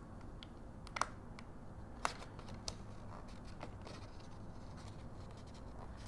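Faint handling of paper and a small metal brad being fitted through a metal handle: two light clicks about a second and two seconds in, then a few softer ticks.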